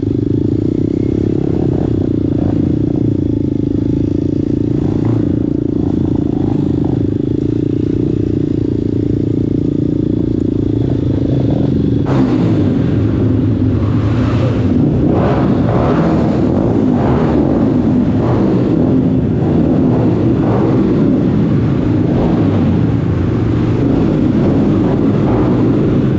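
Motorcycle engine running at a steady speed while riding, then about twelve seconds in the sound turns rougher and uneven, with repeated surges of engine noise.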